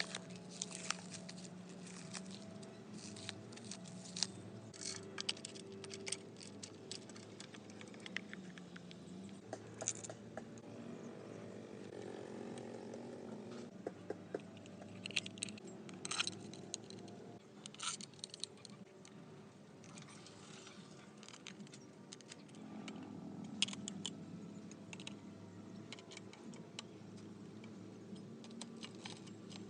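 Scattered light metallic clicks and clinks, as of tools and small metal parts being handled, over a steady low hum.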